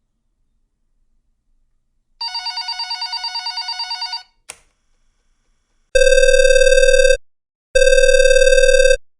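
Electronic telephone ringer giving one rapid warbling ring about two seconds long, then a single click, then a buzzy telephone line tone sounding twice, about a second each with a short gap.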